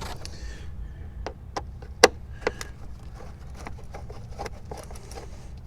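Scattered clicks and small metallic knocks from a flathead screwdriver working the hose clamp on an air intake hose, with one sharper click about two seconds in.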